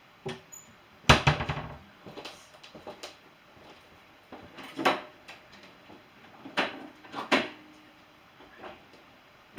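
Kitchen clatter of dishes and kitchenware being handled and set down: a sharp clunk about a second in, then a few scattered knocks and clinks.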